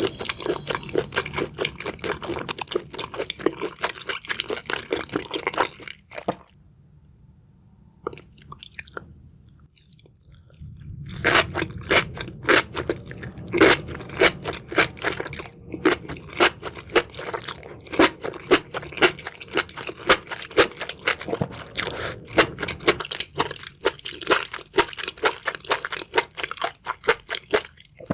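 ASMR eating sounds: seafood chewed with dense, crackly crunching, pausing for about five seconds partway through.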